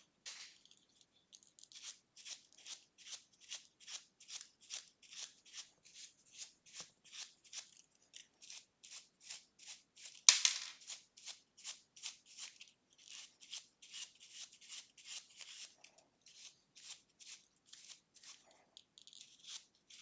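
Painter's brush sweeping dust off a plastic LEGO model in quick, even strokes, about three a second. One stroke about ten seconds in is louder.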